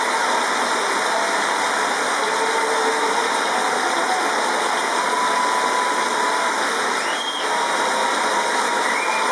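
Large audience applauding steadily, heard through a television speaker.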